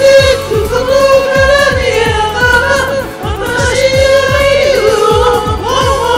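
Up-tempo J-pop song with a steady kick-drum beat, about two beats a second, under a voice singing long held notes.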